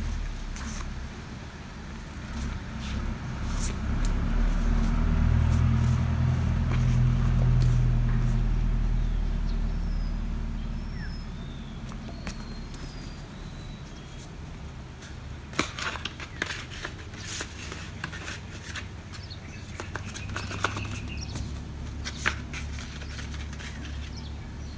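A low engine hum swells over the first few seconds, is loudest about a third of the way in, then fades and stays faint. In the second half, paper sticker sheets and a card are handled in the hands, with rustles and sharp little clicks; a few faint bird chirps come around the middle.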